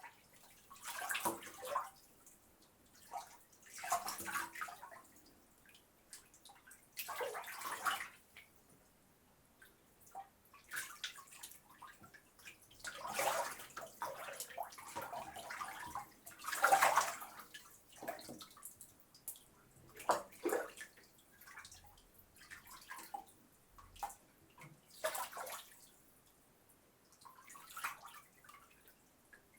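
A person washing in a bath: water splashing and pouring in short, irregular bursts a second to a few seconds apart.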